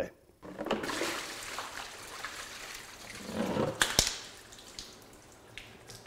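Water dumped out of a plastic five-gallon bucket, rushing and splashing across a concrete floor, tapering off over the last couple of seconds. A sharp knock sounds about four seconds in.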